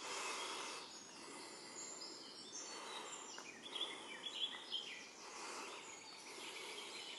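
Outdoor forest ambience: steady background noise with small birds chirping, the chirps briefly busier and louder about four seconds in.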